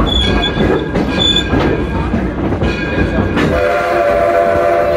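Train rolling behind the Edison steam locomotive, with a steady rumble and clatter of wheels on rail and two brief high wheel squeals on the curve near the start. About three and a half seconds in, the locomotive's steam whistle starts a long, steady chord.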